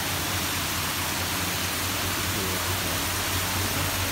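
Steady rushing splash of water jetting from a pipe into a tiled lobster holding tank, with a low steady hum underneath.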